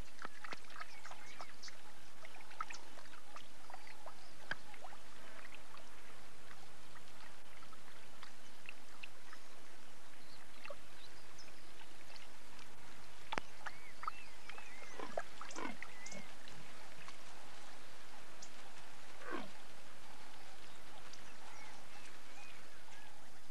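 Leopards lapping water from a pool, a run of wet clicks and slurps, with short high chirps and whistles scattered through.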